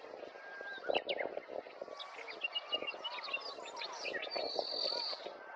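Small songbirds calling, most likely oriental greenfinches: quick twittering chirps, then a drawn-out nasal buzzing note about four and a half seconds in, over gusty wind noise on the microphone.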